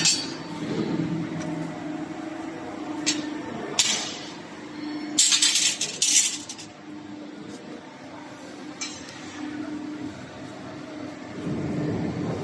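CNC pipe bending machine running with a steady hum, broken by sharp metallic clinks and knocks and a loud burst of hissing about midway.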